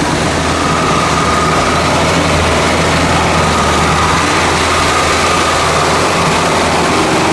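Off-road truck's engine under heavy load while driving through deep mud: a loud, steady engine drone.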